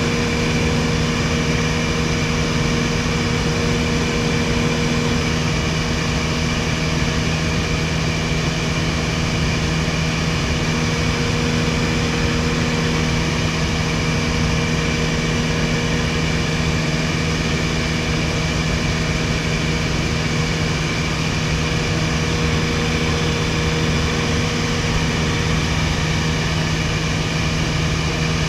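1961 Piper PA-22-108 Colt in cruise flight, heard from inside the cabin: its four-cylinder Lycoming O-235 engine and propeller run at a constant, steady hum over the rush of air, with no change in pitch.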